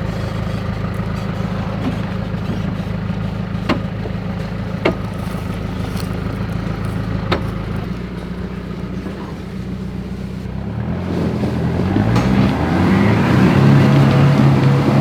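Four-wheel-drive vehicle engine running steadily, with a few sharp knocks. Near the end the engine revs up and back down, the loudest part.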